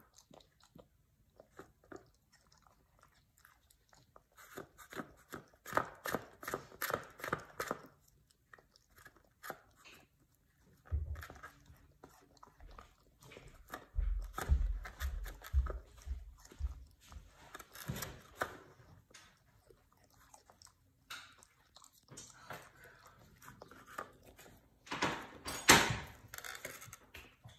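A husky eating from a small bowl: bouts of chewing and crunching, separated by short pauses, with a run of dull low thumps in the middle.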